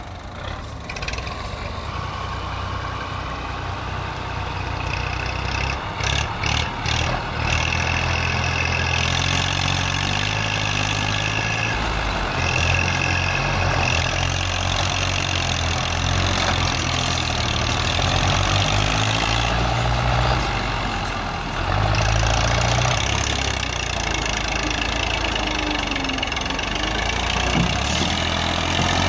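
Massey Ferguson 240 tractor's diesel engine working under heavy load, pulling a loaded sand trolley stuck in mud, with a second tractor's engine running close by. The engine grows louder over the first several seconds and then holds steady, with a few short knocks around six to seven seconds in.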